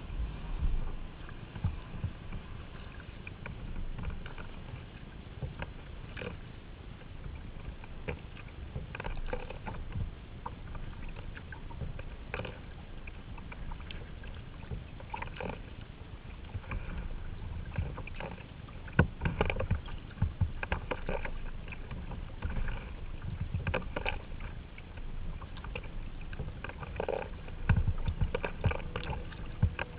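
Kayak paddle strokes, splashing in the water every second or two, over a steady low rumble of wind on the microphone.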